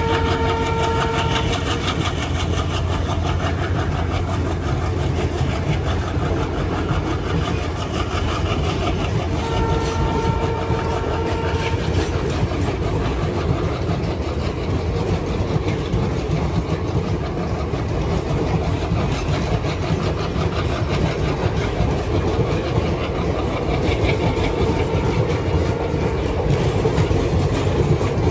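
Passenger train pulling out behind a diesel locomotive: steady engine rumble and coaches clattering over the rail joints. The locomotive's horn sounds twice, at the start and about ten seconds in.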